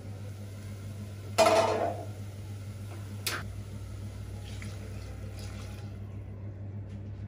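Aluminium pot lid clanging as it is set down about a second and a half in, ringing briefly, followed by a lighter knock of kitchenware about two seconds later.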